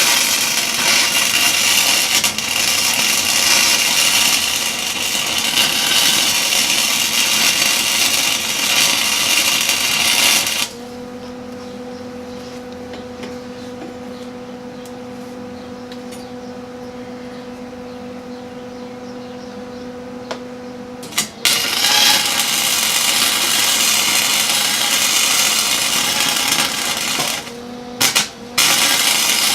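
A loud shop tool working on metal. It runs continuously for about ten seconds and drops to a steady low hum for about ten seconds. It runs again for about six seconds, gives two short bursts, and starts again near the end.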